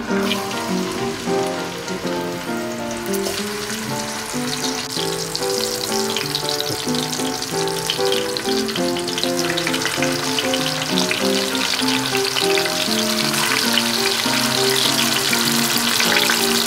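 Poultry pieces sizzling and crackling in hot oil in a pan, the frying growing denser and louder as more pieces go in. Gentle guitar music plays underneath.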